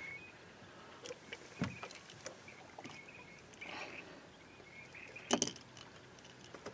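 Scattered knocks and clicks of someone moving about an aluminium deck boat and handling a fishing rod, with one sharper knock about five seconds in.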